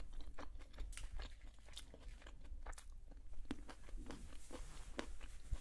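A person chewing a mouthful of food with her mouth closed: irregular soft clicks and smacks, several a second.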